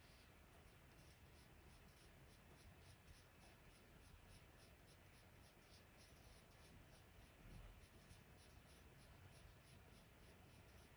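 Faint scratching of a Prismacolor Premier coloured pencil shading on white marquilla drawing paper, in quick, regular back-and-forth strokes of about three or four a second.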